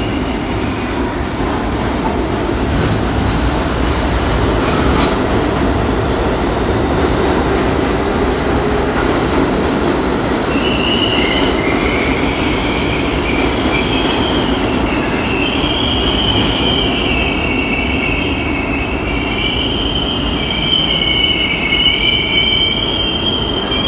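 R32 subway train rumbling and clattering as it runs into the station and slows. From about ten seconds in, its steel wheels squeal in high, wavering tones that last until it comes to a stop.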